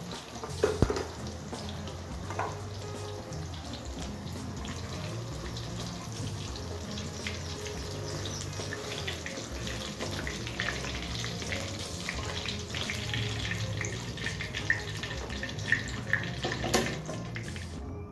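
Tofu cubes deep-frying in hot oil in a wok, a steady sizzle, with a few sharp clicks and scrapes, the loudest just after the start and near the end, as a wire spider strainer scoops the pieces out.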